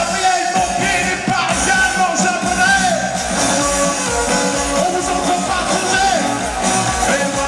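Live band playing an upbeat folk-rock song, with fiddle, accordion and acoustic guitar over drums, and held melody lines.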